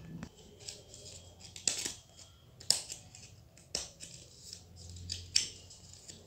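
Stack of folded white paper sheets being handled and pressed by hand: light paper rustling broken by four or five sharp crackles.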